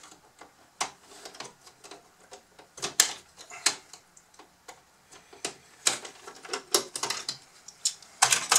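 Irregular clicks and snaps of hard plastic parts and tools as the plastic body of a Bruder CAT D11 toy bulldozer is pried apart by hand, its small snap-in hooks letting go. The loudest snaps come about three seconds in and near the end.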